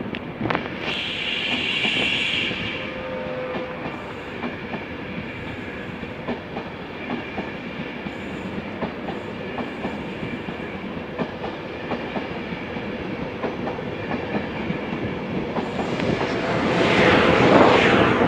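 LNER InterCity 225 passing through at speed: its Mark 4 coaches make a steady rush of wheels on rail with scattered clicks over the rail joints. It grows loudest near the end as the Class 91 electric locomotive at the rear goes by.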